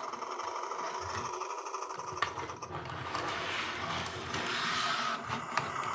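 VTech Toot-Toot Drivers toy bulldozer playing a steady whirring engine sound, with a single click about two seconds in.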